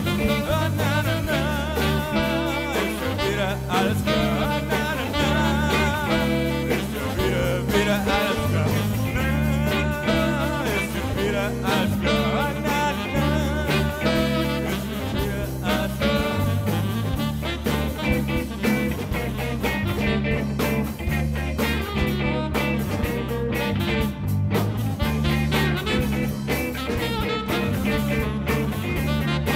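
Background music with a singing voice and a steady, repeating bass line.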